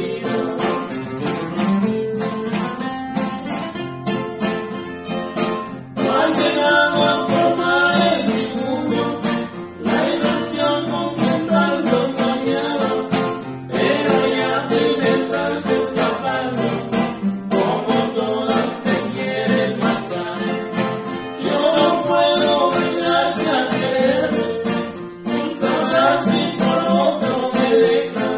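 Two acoustic guitars, one of them a nylon-string classical guitar, strummed and plucked together to accompany men singing a ranchera song in phrases with short breaks between them.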